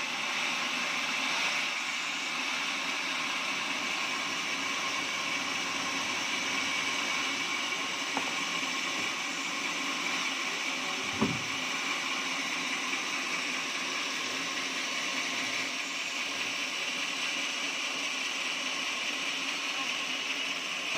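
Portable sawmill running steadily, with a single sharp knock about eleven seconds in.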